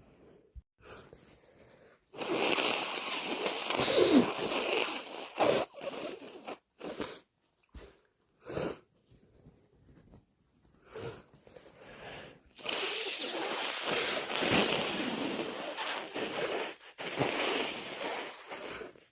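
Person with a heavy head cold blowing their nose hard, twice, each blow lasting several seconds. There are short, separate bursts of breath noise in between.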